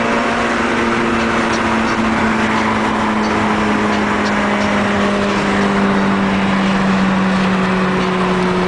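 Car engine droning at a steady, nearly constant pitch under way at highway speed, heard from inside the cabin with road and wind noise underneath.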